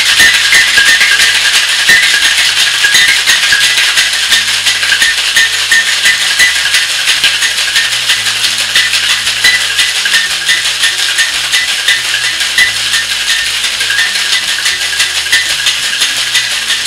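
Ice rattling hard inside two metal cocktail shaker tins, shaken vigorously and without a break, as gin and olive or caper brine are shaken with ice to chill a dirty martini. Background music plays under the rattle.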